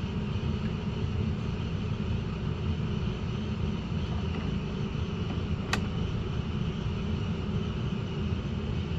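Coleman rooftop RV air conditioners running together, a steady drone of fans and compressor with rushing air. A single sharp click about halfway through.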